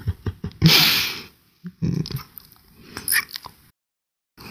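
A man's voice making short non-word sounds, with one long breathy huff about a second in, then falling quiet near the end.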